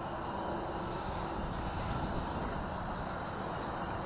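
WLtoys V950 RC helicopter in flight, its brushless main motor and rotor blades giving a steady, even buzzing whine.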